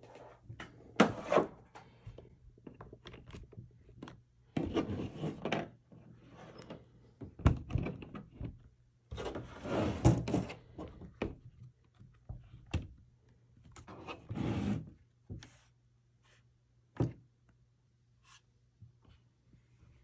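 Handling noise from a plastic laptop being moved about on a tabletop: irregular knocks, thunks and short scraping rubs as it is turned, the power cord plugged in and the lid opened, with a faint steady low hum underneath. The sounds thin out over the last few seconds.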